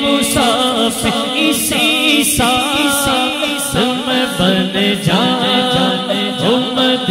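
A man singing an Urdu naat into a microphone without instruments, in long melismatic phrases with sliding pitch, over a steady low held drone.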